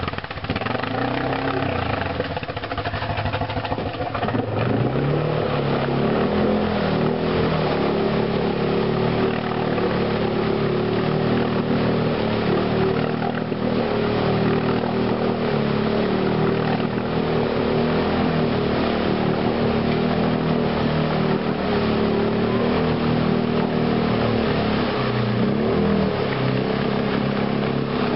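Arctic Cat Mud Pro ATV engine revving hard under load while the quad is stuck in a mud rut with its wheels spinning. The revs climb a few seconds in and hold high and steady, dipping briefly near the end before picking up again.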